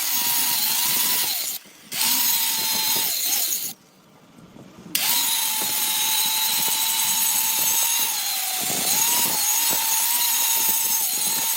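Electric power tool running with a high whine and hiss. Its pitch sags several times as it bears on the work. The sound cuts out abruptly twice, briefly about one and a half seconds in and for about a second around four seconds in.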